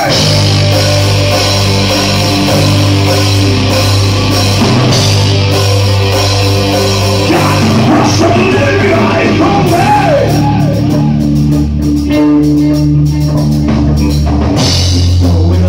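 A rock band playing live, with electric guitars and a drum kit, and a voice singing at times.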